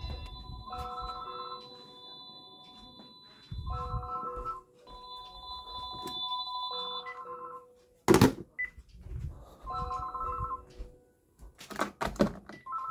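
Several Panasonic cordless phone handsets sounding their alarms at once: overlapping electronic ringing tones that come and go in repeating bursts. A loud sharp click about eight seconds in and further clicks near the end.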